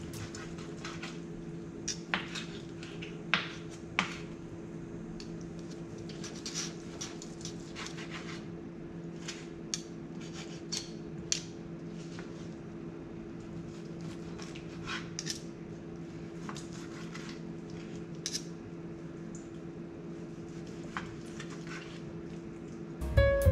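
Chef's knife and carving fork working through a cooked steak on a wooden cutting board: scattered clicks and taps of metal on wood, sharper in the first few seconds. A steady low hum runs underneath.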